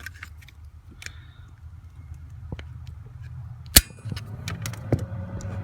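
A sharp electrical click about four seconds in, and another about a second later, as the bypassed ignition circuit of a 1989 Jeep Cherokee is switched on. After the second click the heater blower fan starts with a steady whine over a low hum.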